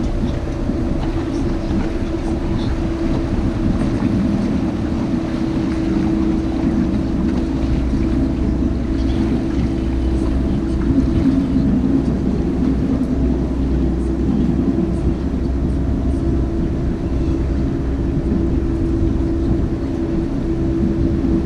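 Canal tour boat's engine running steadily: a constant hum over a low rumble.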